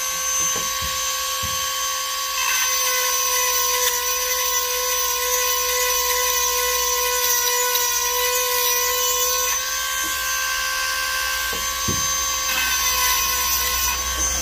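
Handheld rotary tool with a grinding stone running at a steady high-pitched whine as it sharpens the cutters of a chainsaw chain. The whine shifts slightly in pitch and loudness a couple of times, then stops at the end.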